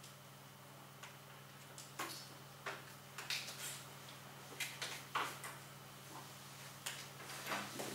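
Scattered light clicks, taps and rustles, irregular and about a dozen in all, from people handling things in a quiet classroom, over a steady low hum.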